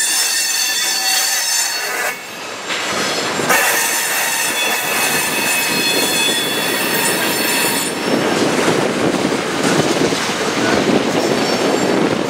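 Freight train tank cars rolling past, their wheels squealing in several high steady tones that drop out briefly about two seconds in. From about eight seconds the squeal gives way to a rumble and clatter of wheels on the rail.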